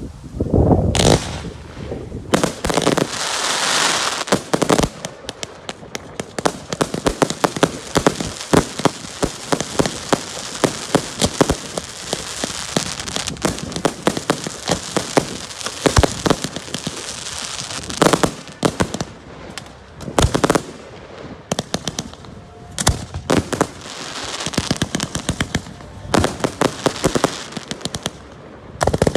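Fireworks display: a deep boom at the start, then a dense run of rapid bangs and crackling, with several louder single bursts in the second half.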